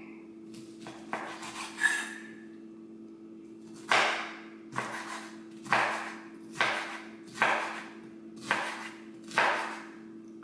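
Kitchen knife chopping through fresh pineapple onto a wooden cutting board: a couple of lighter cuts, then seven sharp chops a little under a second apart from about four seconds in.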